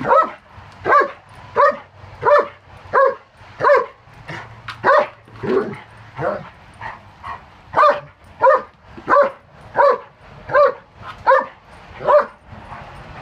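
German Shepherd barking over and over at a steady pace, about three barks every two seconds, stopping shortly before the end.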